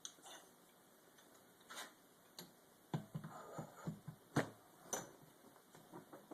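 Scattered light metal clicks and knocks as a freezer-chilled crankshaft is lowered into a heated engine part and touches it without dropping into place, the loudest knock about four seconds in.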